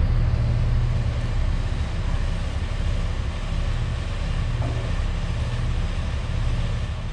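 Steady low rumble with a hiss over it, an engine-like outdoor background noise with no distinct events.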